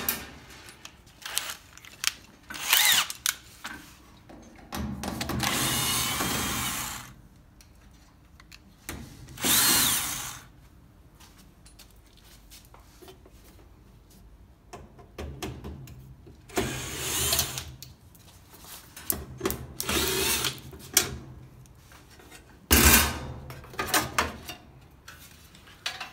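A 14.4 V cordless drill-driver running in short spurts, about six runs of a second or two each, the longest about five seconds in, as it backs screws out of the sheet-metal rear panel of a top-load washing machine's control console. Between the runs there are a few light clicks of handling.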